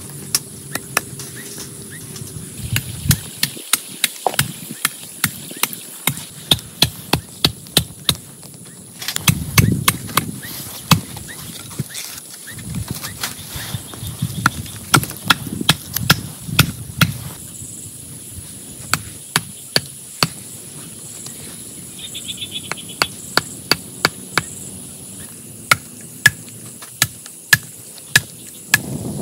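Rain falling steadily, broken by runs of sharp knocks, about three a second, lasting a couple of seconds each and coming several times.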